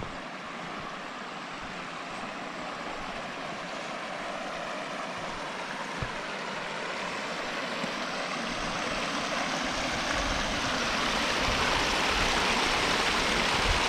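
Rushing river water running over rocks, a steady wash that grows steadily louder as it comes closer.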